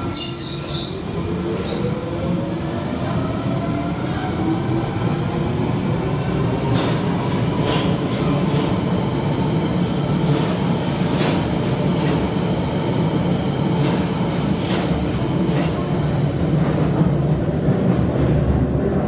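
London Underground Bakerloo line 1972 Stock train pulling away, its traction motor whine rising in pitch as it gathers speed. It then settles into steady running noise with the occasional click of the wheels over rail joints.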